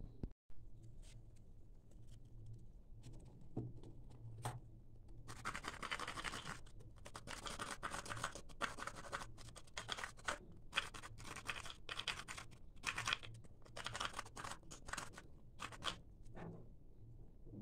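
Hands scratching and scraping at a coconut's fibrous husk: a run of short, irregular scratching strokes starting about five seconds in.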